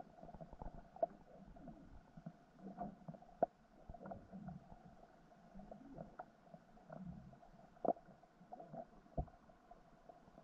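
Underwater sound heard through a submerged camera: a faint, muffled low rumble with irregular soft clicks and pops scattered throughout.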